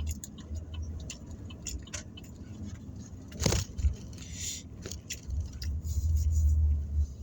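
Low engine and road rumble inside a car, with scattered small clicks and crinkles of food being handled and eaten. There is one louder crackle about three and a half seconds in.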